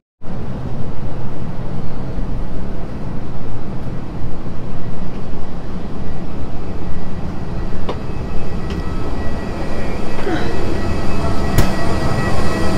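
Airliner cabin noise: a loud, steady rushing sound with a few faint clicks.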